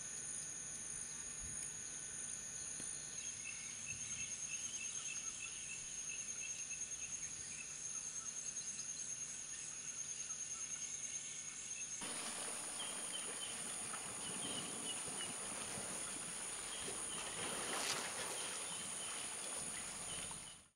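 Forest insect chorus: insects hold two steady high whining tones over rhythmic chirping, and the chorus changes abruptly about twelve seconds in. A brief louder noise comes near eighteen seconds.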